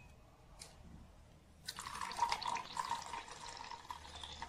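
Vinegar poured from a plastic cup into a bowl: a splashing trickle that starts a little under two seconds in and lasts about two and a half seconds.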